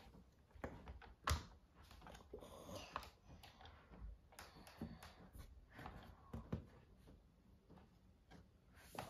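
Faint, scattered clicks and taps of hands handling a plastic Play-Doh Dino Crew Crunchin' T-Rex toy and lumps of play dough, with one louder knock about a second in.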